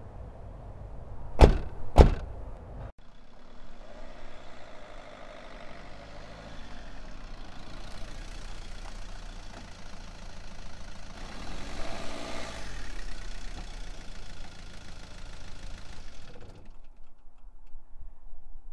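Two car doors slam shut about half a second apart. Then a Fiat Punto hatchback drives along a gravel road, its engine and tyres running steadily, louder as it passes about twelve seconds in and fading near the end.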